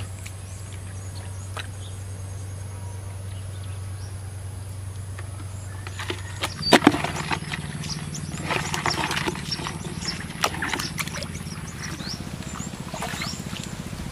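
Hands knocking and scraping against an old plastic bucket, with one sharp knock followed by a stretch of rattling and scraping. A steady low drone runs underneath and rises in pitch about halfway through.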